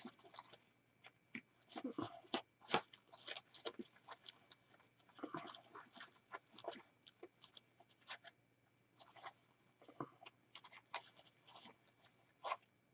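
Faint, irregular crinkling and rustling of ribbon and artificial greenery being handled and twisted together as a bow is tied in.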